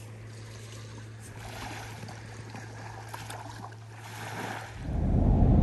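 Soft lapping of small waves on a calm beach with a steady low hum underneath. Near the end a louder rumble of car road noise comes in.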